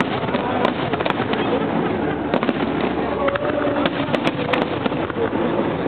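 Aerial fireworks bursting in a dense, continuous barrage, with many sharp cracks over a steady rumble.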